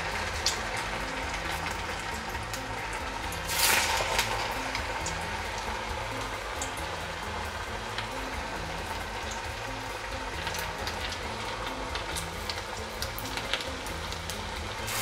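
Sago vadas deep-frying in hot oil in a wok: a steady sizzle with fine crackling, swelling sharply for a moment about four seconds in.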